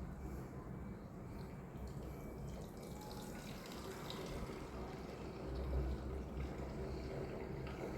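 Faint water sounds: light splashing and dripping over a low steady rumble.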